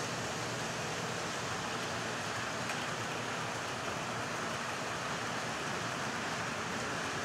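HO-scale model freight train of tank cars rolling past on the track: a steady rushing of small wheels on the rails.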